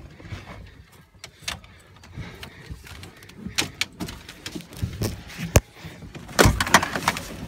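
Irregular knocks, rattles and scrapes of gear being handled on a boat, with one sharp knock a little past the middle and a louder scuffle near the end.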